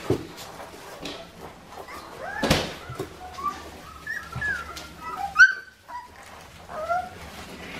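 Young Australian Shepherd puppies whining and yipping in short, high squeaks, with the loudest yip about five and a half seconds in.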